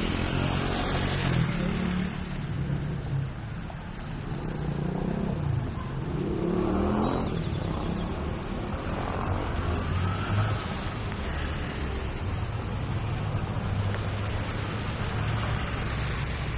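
Road traffic: a motor vehicle engine running with a steady low hum.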